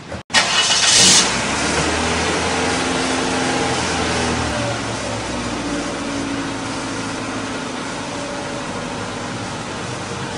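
A car engine starting, loudest in its first second, then running steadily.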